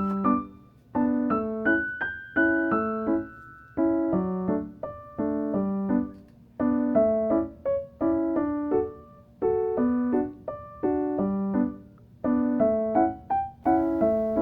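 Background music: a keyboard tune of short plucked-sounding chords repeating in a steady rhythm, roughly one to two notes a second.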